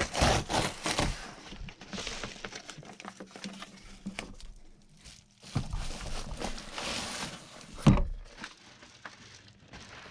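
Shipping packaging being torn open and crumpled by hand, irregular rustling and crackling, with one sharp knock about 8 seconds in.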